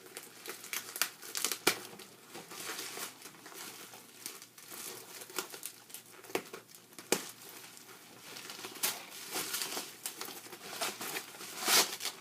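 Packaging crinkling and rustling in irregular bursts as it is handled and pulled at in a struggle to get it open, with a few sharp snaps and a louder crackle near the end.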